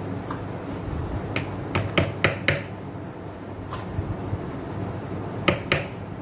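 Sharp crackles and clicks of a plastic wrapper being handled as a block of butter is unwrapped: a cluster about a second and a half in and two more near the end, over a steady low hum.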